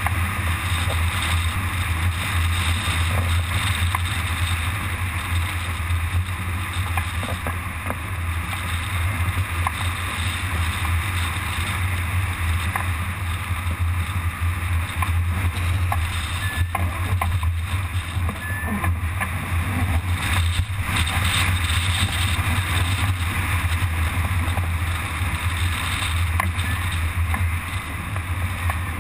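Steady rush of airflow buffeting the microphone of a camera mounted on a hang glider in flight, with a strong low rumble under the hiss.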